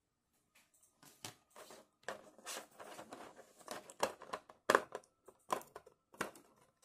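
Clear plastic packaging crinkling and crackling as hands work small parts out of a blister tray: an irregular run of sharp crackles starting about a second in, the loudest a little under five seconds in.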